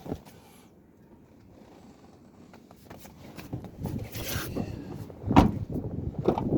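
Handling noise: rustling and several knocks, the loudest about five seconds in.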